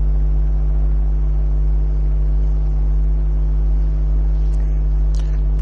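Steady low electrical hum with a buzzing ladder of overtones, unchanging throughout: mains hum in the microphone and sound-system chain.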